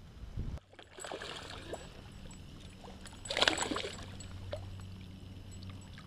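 A hooked bass splashing and thrashing at the water's surface beside a kayak, loudest a little past halfway, with lighter splashes around it.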